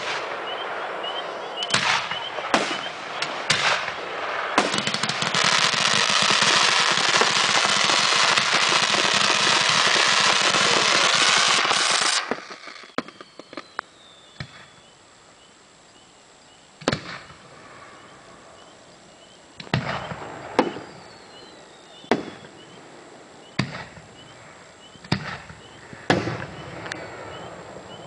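Consumer fireworks going off: a dense, continuous rush of crackling and hissing with bangs for about the first twelve seconds, which cuts off abruptly. After that come about seven separate sharp bangs, a few seconds apart, of shells bursting overhead.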